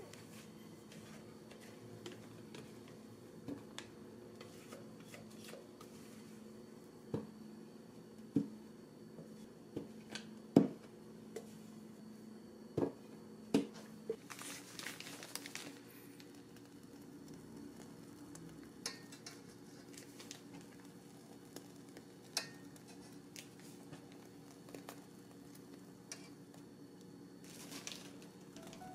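Chocolate dacquoise batter being spooned into a plastic piping bag set in a glass jug: a series of sharp taps and knocks in the middle, the loudest about ten seconds in, then a rustle of the plastic bag, with another brief rustle near the end. A faint steady hum runs underneath.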